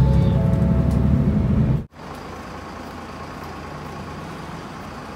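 Bus engine and cabin noise running heavily from inside the bus, with a few steady tones over it. It cuts off abruptly about two seconds in, giving way to much quieter, steady street and traffic noise.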